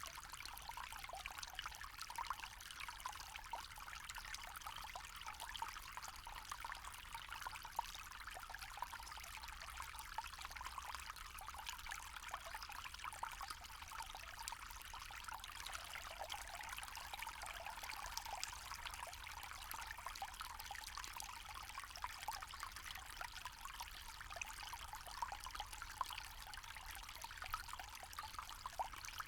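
Small forest stream trickling and babbling steadily over stones, with many small splashes.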